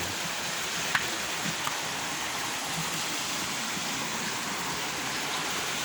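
Steady rush of water flowing over a dam, with a single sharp click about a second in.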